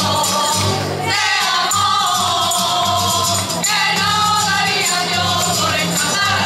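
A group of women singing together in chorus to a Spanish guitar, with light rhythmic percussion; a new sung line begins about a second in and another about three and a half seconds in.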